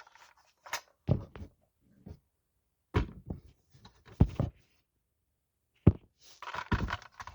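Handling noise from a 1/24 scale diecast stock car model: a scattered series of short knocks and clicks as it is turned over and moved about in the hands.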